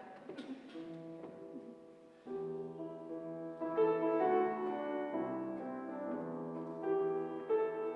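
Acoustic piano playing a slow song intro of held chords, a few soft notes about a second in, then fuller chords from a couple of seconds in.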